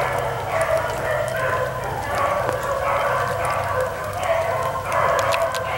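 Beagles baying in a running chase on a rabbit's track, their cries coming about twice a second and overlapping.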